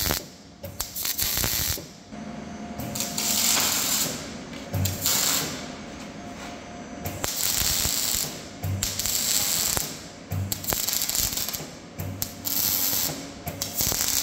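Mechanical tool noise from car work in a workshop, coming in bursts of one to two seconds with short pauses between.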